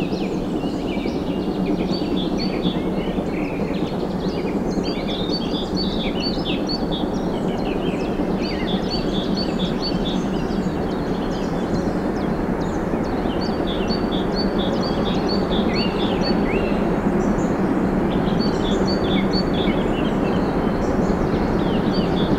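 Woodland birdsong, many short chirping calls, over a steady low rumble that grows slowly louder toward the end.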